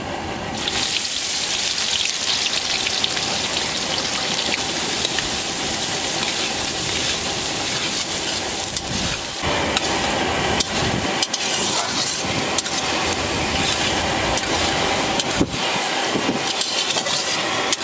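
Chopped onions sizzling in hot oil in a large metal kadai. The steady frying hiss starts about half a second in, as the onion hits the oil, and is broken by the scrape and clack of a metal spatula stirring them.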